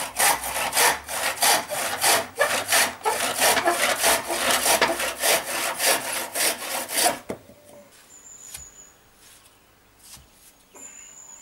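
Hand saw cutting through a bamboo pole, rasping back and forth at about three strokes a second for about seven seconds, then stopping. A few faint knocks follow.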